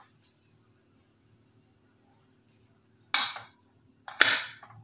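Two short metallic clinks about a second apart, the second louder, as the weight valve (whistle) of a Prestige aluminium pressure cooker is set down onto the vent pipe of its lid.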